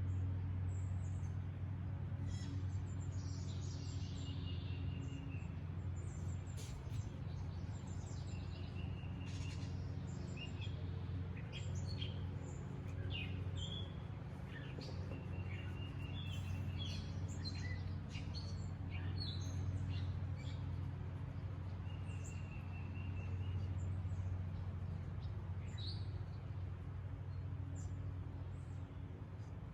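Wild birds chirping and singing on and off, short high calls scattered through, over a steady low hum.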